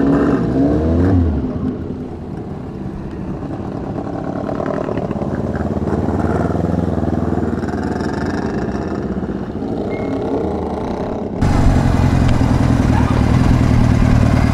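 Old Japanese motorcycle engines running and revving as the bikes pull away one after another. About eleven seconds in the sound jumps to a louder, steady engine note from a Kawasaki Z-series air-cooled inline four rolling past.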